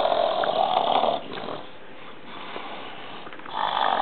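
A man snoring loudly in his sleep. One long snore ends about a second in, quieter breathing follows, and the next loud snore starts near the end.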